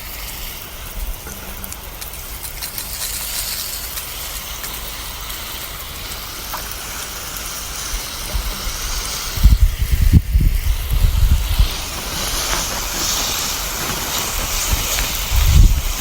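Garden hose spraying water onto plants: a steady hiss that grows stronger in the last few seconds. Low rumbling bumps come in about ten seconds in and again near the end.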